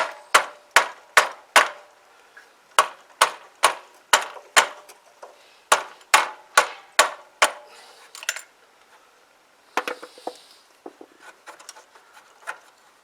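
Hammer blows knocking a motorcycle front fork leg down out of its clamps. There are sharp strikes at about two or three a second in three runs, then fainter scattered knocks and rattles from about eight seconds in as the fork tube works free.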